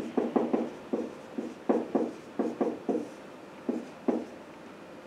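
Dry-erase marker writing on a whiteboard: a quick run of short squeaky strokes, with a brief pause about a second and a half in, stopping about four seconds in.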